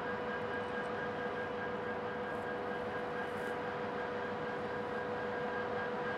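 Quadcopter drone's propellers humming steadily at an unchanging pitch.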